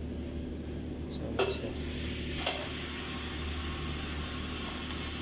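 Pneumatic tire changer being worked: two sharp clicks about a second apart, the second followed by a steady hiss of compressed air venting for about three seconds, over a low steady hum.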